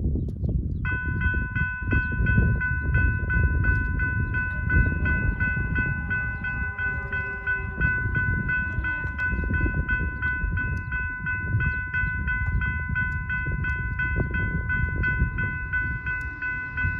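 Railroad crossing warning bell starting up about a second in and dinging at a fast, even rate as the crossing activates and its gates come down, over a steady low rumble.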